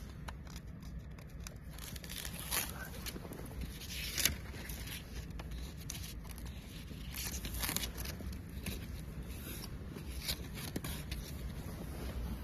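CNC digital cutter's oscillating knife cutting carbon fiber prepreg: a steady low hum with scattered short, crackling cutting strokes.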